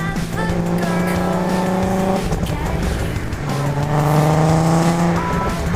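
Volkswagen Golf R32's 3.2-litre VR6 engine heard through its stock exhaust while driving, with the engine note shifting in pitch as the revs change.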